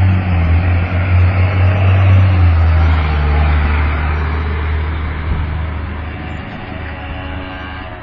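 Small scooter engine running after being given a little gas; its low hum drops in pitch about two and a half seconds in and then slowly fades. The scooter is hard to start and dies when given gas, which the owner puts down to the carburetor while running on choke.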